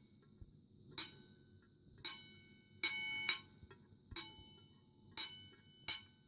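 Gamewell single-stroke fire alarm bell's metal gong struck seven times, roughly once a second. Each strike gives a short metallic ring with several pitches that dies away quickly.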